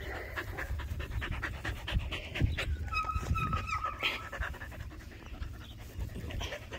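A dog panting rapidly close to the microphone, with a thin steady high tone lasting about a second about three seconds in.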